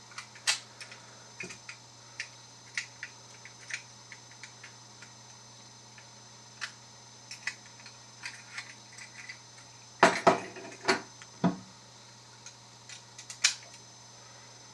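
Small metallic clicks and scrapes of thin spring-steel shims being worked into a padlock's shackle, with a few louder knocks and rattles of the lock about ten to eleven seconds in and again near the end.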